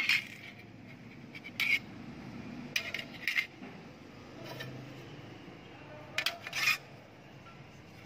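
Sharp metallic clinks and scrapes of a removed Suzuki APV automatic transmission oil pan and strainer being handled and turned over on concrete, in a few short clusters.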